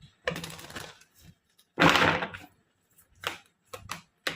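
Tarot cards being shuffled and drawn: rustling and snapping of the card stock, louder about two seconds in, then a few light taps as cards are laid down.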